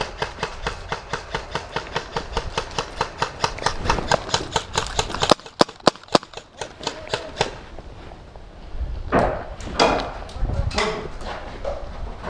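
Running footsteps, about four steps a second, with a few sharper clicks about halfway through. Steps go on briefly after that, then give way to rustling and faint voices.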